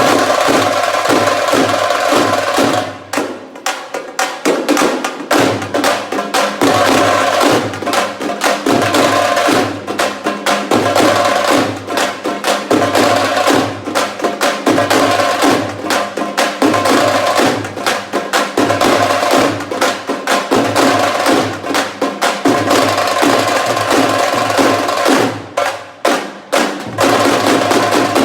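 Fast, continuous drumming with sharp, wood-block-like strikes over a steady held tone; the drumming thins out briefly twice.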